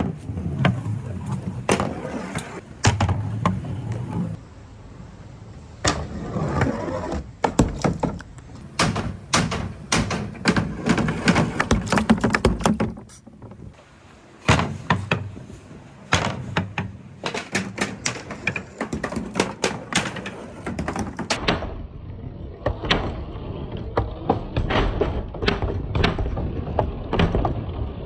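Many billiard balls rolling down a handmade wooden marble-run slope: a continuous low rumble full of rapid, sharp clacks as the balls knock against the wood and each other, with a short lull about halfway through.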